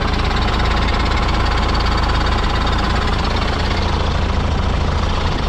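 John Deere 6310 tractor's turbocharged diesel engine running steadily through its new stainless-steel exhaust.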